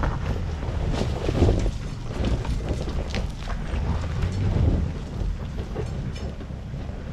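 An off-road 4WD's engine running low and steady as it crawls up a rough track, with irregular clicks and knocks from the tyres and underbody on rock.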